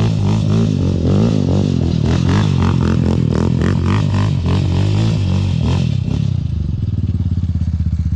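Loud outro music with a heavy, wavering bass line; near the end the bass breaks into a fast pulsing.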